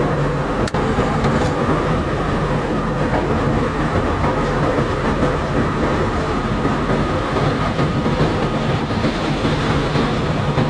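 A self-unloading barge's discharge conveyor and machinery running steadily, loose stone and sand cargo rattling along it in a continuous clatter.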